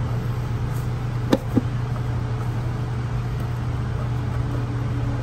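A steady low hum, with two light clicks about a second and a half in.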